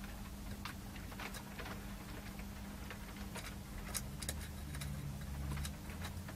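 Scattered small clicks and taps of a hand-held metal power-supply chassis and its screws being handled while a part is fitted back in by hand, over a steady low hum.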